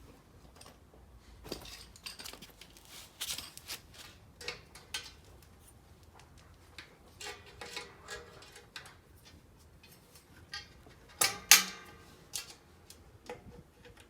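Irregular metallic clicks and clinks of tools and parts being handled during an oil change, with two sharper clanks close together about eleven seconds in.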